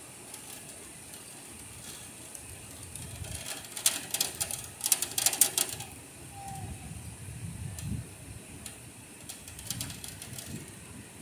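Heavy rain hissing steadily, with bursts of drops pattering hard on the stone window ledge close by, loudest about four to six seconds in and again briefly near eight and ten seconds.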